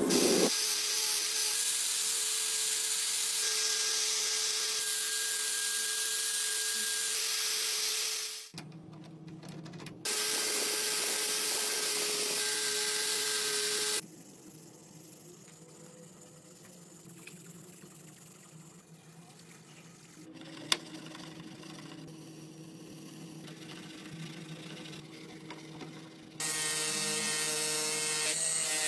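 A power tool running steadily against the workpiece in long spells, with a short break after about eight seconds and a quieter stretch in the middle; a single sharp click stands out in the quiet part.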